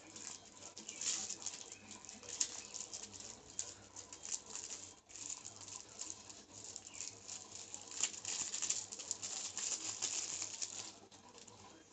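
Hands handling and scratching at a small product box while opening it: irregular rustling with rapid small clicks and scrapes, which stop about 11 seconds in.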